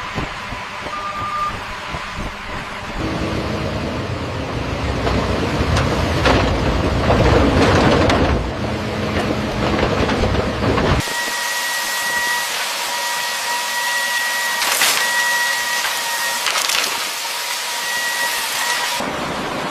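Heavy road-construction machinery running, its engine rumble growing louder a few seconds in. About eleven seconds in the rumble cuts off abruptly, giving way to a steady hiss with a high whine.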